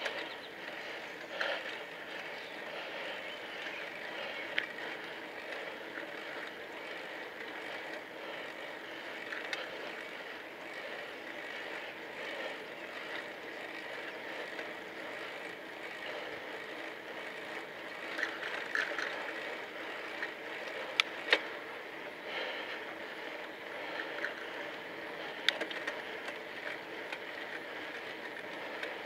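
Bicycle being ridden: a steady running noise of tyres and drivetrain, with a few sharp clicks.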